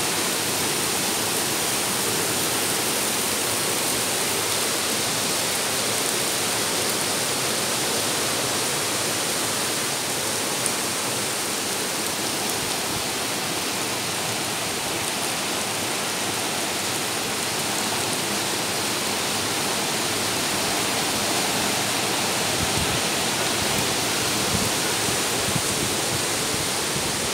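Heavy rain together with brown floodwater rushing over and through a concrete culvert: a steady, unbroken hiss of falling and running water.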